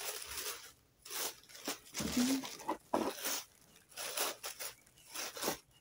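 Packaging being handled and unwrapped: uneven bursts of crinkling and rustling, some brief and some lasting about a second.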